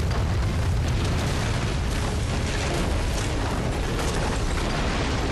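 Deep, continuous earthquake rumbling with crumbling and crashing stone as a temple's masonry breaks apart.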